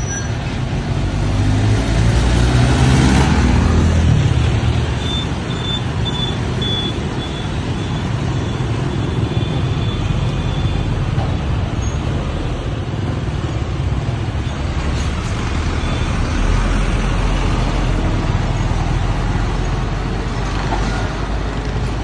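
Heavy road traffic, with diesel trucks and motorbikes passing close by. It is loudest about 2 to 4 seconds in, as a truck engine goes past with its pitch falling, and swells again later as more trucks pass.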